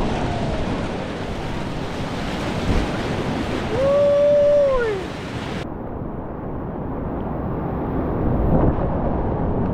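Whitewater rapids rushing steadily, with wind buffeting the microphone. About four seconds in, a single high note rises, holds for about a second and falls away.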